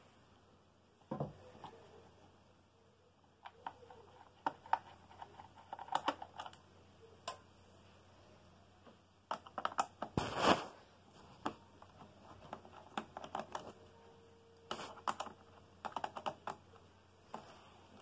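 Irregular small clicks and taps of hands and a screwdriver working on the plastic underside of a Toshiba Portégé R700 laptop, undoing screws and setting them in a magnetic tray, with a louder knock about ten seconds in.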